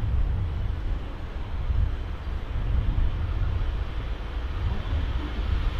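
Double-deck Intercity train approaching along the line, a steady low rumble that slowly grows, mixed with wind rumbling on the microphone.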